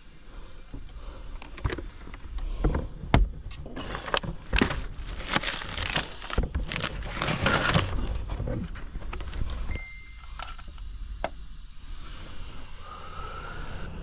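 A run of knocks, clicks and rustling, busiest in the middle, over a steady low rumble.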